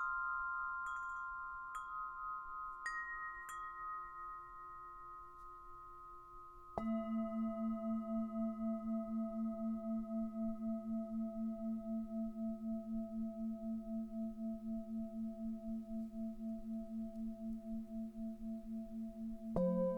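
Wind chimes tinkle with a few light strikes that fade. About seven seconds in, a Tibetan singing bowl is struck and rings low and long with a slow, pulsing wobble. Another bowl is struck just before the end.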